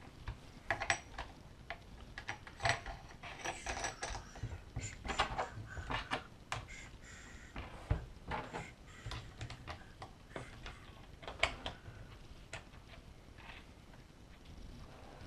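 Small metal hardware and aluminium plate parts clinking and knocking as they are handled and fitted by hand: irregular sharp clicks, busiest in the first twelve seconds or so, then sparser.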